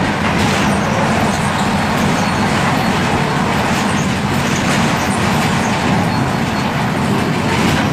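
Mercedes-Benz OF-1721 Bluetec 5 bus's diesel engine running with a steady, even rumble and drone.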